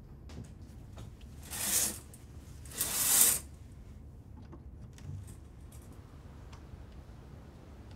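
Windows being opened: two short scraping swishes about a second apart, then a few light clicks and knocks.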